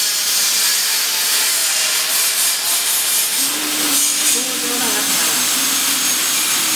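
Fiber laser cutting machine cutting 8 mm carbon steel plate: a loud, steady hiss of the assist gas jet blowing through the burning cut.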